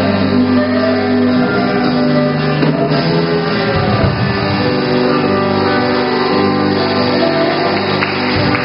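Instrumental worship music: held chords on instruments that change every second or so.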